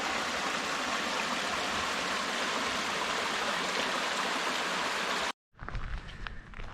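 Small hillside creek running, a steady rush of water that cuts off abruptly about five seconds in. A few light taps follow.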